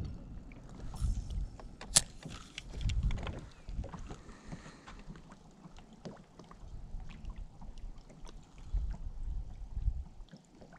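Wind gusting on the microphone, heard as a low rumble, and water lapping against a bass boat's hull. About two seconds in there is a single sharp click, followed by the faint ticking of a spinning reel being wound in.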